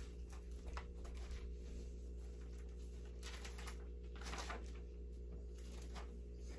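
Paper pages being turned by hand: a few soft rustling swishes, the loudest a little past the middle, over a steady low hum.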